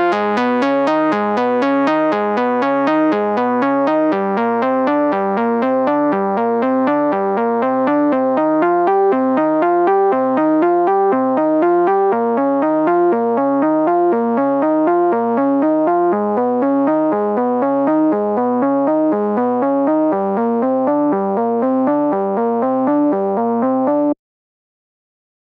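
Software synthesizer (u-he Hive, 'XS Brutal Saw' preset) playing a bright saw-wave sound in a fast, repeating sequence of notes that climb in steps. It plays in near-mono, centred, and cuts off suddenly near the end.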